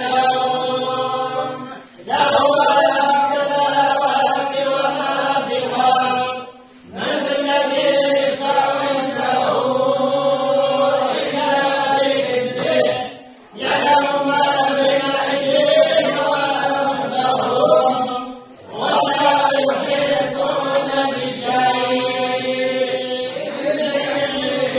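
A group of men's voices chanting together in unison, in long sustained phrases of about five to seven seconds, each broken by a short pause for breath.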